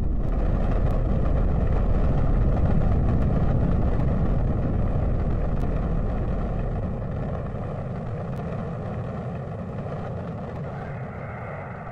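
Rocket engines at liftoff: a loud, dense low rumble that fades gradually over the second half, leaving fainter steady higher tones near the end.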